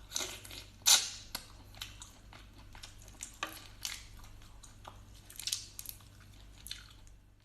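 Close-up eating sounds: irregular crackles, clicks and smacks of someone chewing boiled prawns, the loudest about a second in.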